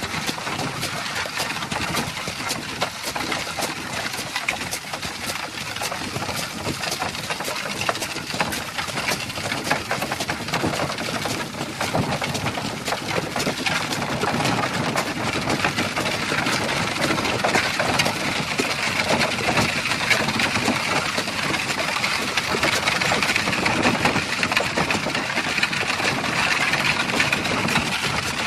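A horse-drawn cart on the move: hooves clopping with the cart rattling and clattering behind, a continuous dense clatter that grows somewhat louder about halfway through.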